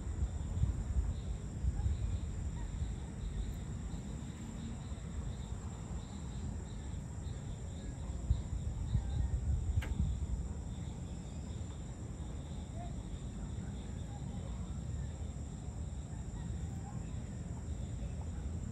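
Evening outdoor ambience: insects chirring steadily at a high pitch, over a louder, uneven low rumble. A single faint click about ten seconds in.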